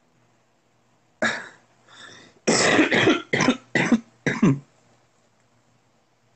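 A person coughing: a single cough a little past a second in, then a fit of four or five coughs close together.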